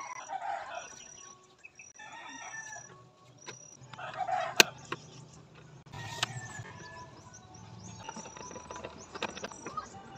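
A rooster crowing several times in the background over a steady, evenly repeating insect chirping. Sharp plastic clicks come from junction-box covers and a switch being fitted by hand, with one loud click about four and a half seconds in.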